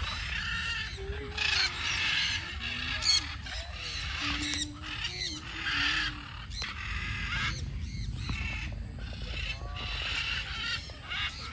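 Parrots squawking and screeching, harsh calls repeated in short bursts over a steady low rumble.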